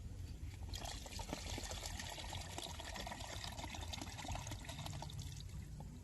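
Liquid poured in a steady stream into a container, starting about a second in and stopping shortly before the end.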